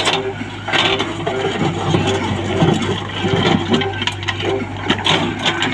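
Backhoe loader's diesel engine running steadily at a low hum, with voices and scattered knocks over it.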